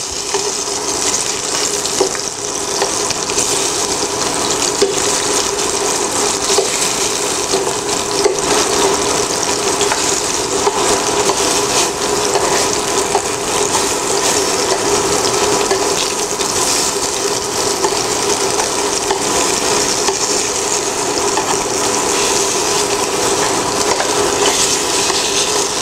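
Salmon pieces sizzling steadily in hot oil in a frying pan, with now and then a light tap of metal tongs as the pieces are turned over. A faint steady hum runs underneath.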